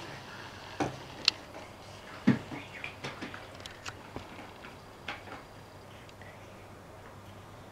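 A few sharp knocks in the first couple of seconds, then light, scattered pencil taps and strokes on a paper worksheet lying on a desk.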